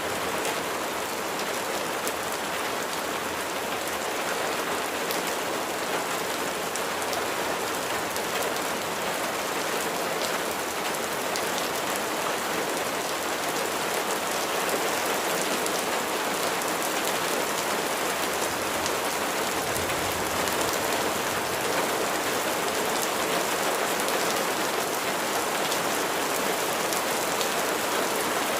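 Steady rainfall: an even hiss of rain with many distinct drops pattering on a surface.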